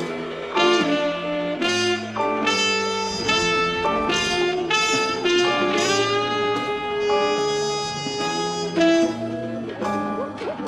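Background music: an instrumental piece with a held melodic lead line over sustained chords.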